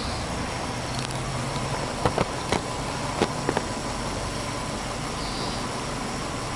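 Subaru Impreza WRX STI's turbocharged flat-four boxer engine idling steadily, heard from in front of the open engine bay, with a few light clicks about two to three and a half seconds in.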